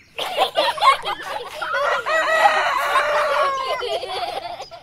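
Chickens clucking and squawking together, with a rooster crowing among them. The calls overlap throughout and cut off suddenly at the end.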